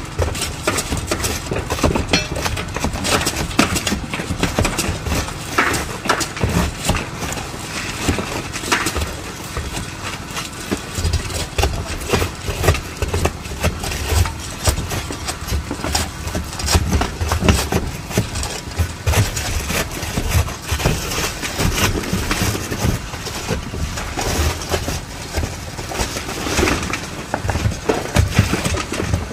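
Roof tear-off work: irregular knocking and scraping from roofers prying up old shingles, over a steady low engine-like rumble.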